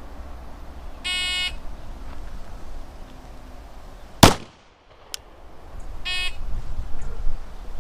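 A shot timer's start beep, then about three seconds later a single loud 9mm shot from a Glock 19 pistol drawn from the holster, and a second timer beep five seconds after the first, marking the end of the 5-second par time.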